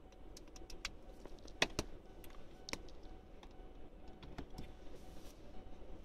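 Level-crossing warning bell ringing faintly, muffled through a closed car. Scattered sharp clicks fall at irregular times, with the loudest pair just under two seconds in.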